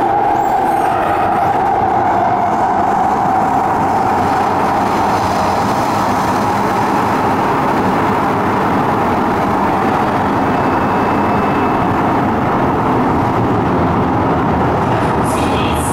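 Cabin noise of a C751B metro train running in a tunnel: the traction motors' whine, strong in car 1341, sinks a little in pitch over the first few seconds, then gives way to a steady rumble of wheels and running noise.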